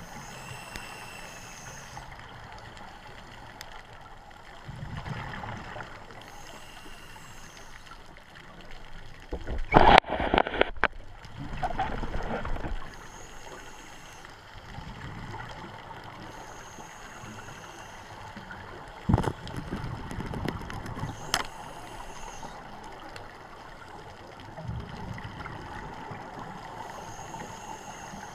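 Scuba diver breathing through a regulator underwater: a hiss on each inhale and a gurgling rush of exhaled bubbles, repeating every six to seven seconds. About ten seconds in comes a loud rush of bubbles, and a few sharp knocks follow later.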